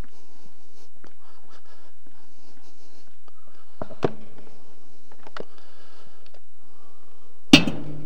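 Handling noises of a plastic basin of raw lamb heads being carried to a metal kazan: light scrapes and clicks, a sharp knock about four seconds in, and a loud clatter with a brief ring near the end as the basin and heads meet the kazan. A steady low hum runs underneath.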